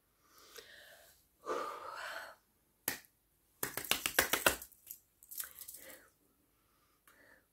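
Deep sniffs through the nose, smelling perfume oil on the skin of the forearm, with a quick flurry of sharp clicks and slaps from the hands and metal bracelets coming together about four seconds in.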